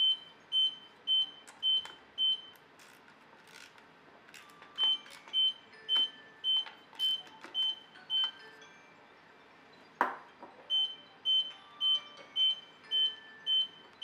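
Mobility scooter's console beeper sounding short high beeps, about two a second, in runs of about seven with a pause of two or three seconds between runs. A single sharp click comes in a pause about ten seconds in.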